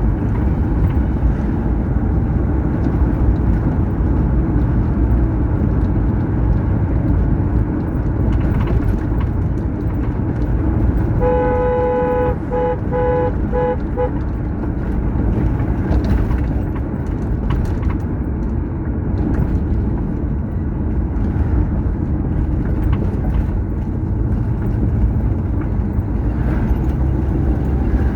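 Steady low road and engine rumble of a vehicle driving on a highway. Around the middle, a vehicle horn sounds in a quick run of short toots.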